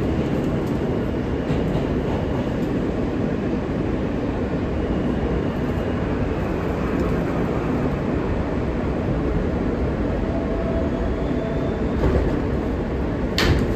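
New York City subway car running through a tunnel, heard from inside the car as a steady, dense rumble while it pulls into a station. A faint whine comes in about ten seconds in, and a single sharp click sounds near the end.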